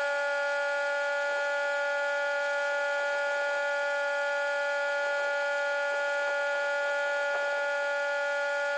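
Pressure washer spray wand giving a steady whistling whine at one held pitch, with overtones, as water is forced through the nozzle.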